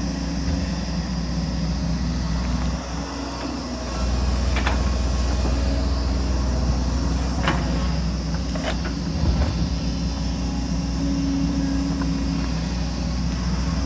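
Excavator's diesel engine running steadily, getting louder about four seconds in, with a few sharp clanks from the machine at work.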